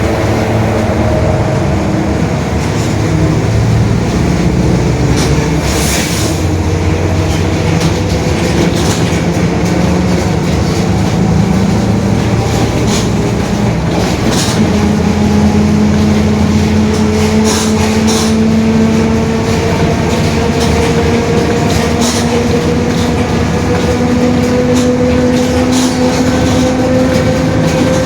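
Mercedes-Benz OF-1721 BlueTec 5 city bus under way, its drivetrain running steadily with scattered rattles and clicks. A whining tone rises slowly in pitch through the second half: the differential is howling.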